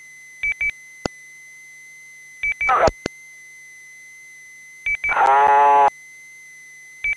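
Two-way radio channel with stations briefly keying up: four short double beeps, three of them followed by a short burst of garbled sound through the radio. The loudest burst lasts under a second, about five seconds in. A faint steady high tone hums underneath.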